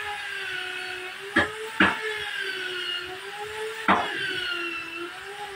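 Wooden boards knocking sharply four times as they are handled. Under them a machine hums steadily, its pitch wavering slowly up and down.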